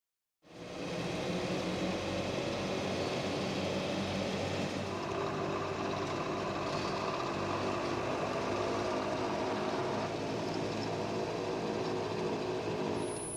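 Off-road 4x4's engine running steadily while the vehicle drives, starting about half a second in.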